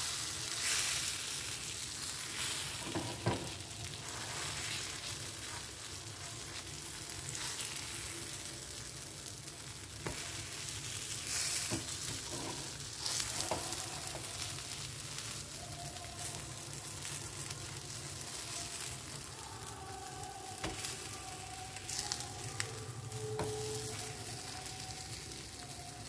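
Oat pancakes frying in ghee on a nonstick tawa with a steady sizzle. A spatula scrapes under them and turns them over, with now and then a sharp tap on the pan.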